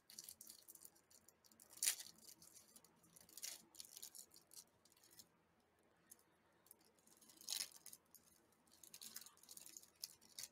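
Plastic wrapper of a Gansito snack cake being torn and peeled open, a few short crinkling bursts, the loudest about two seconds in and another well past halfway.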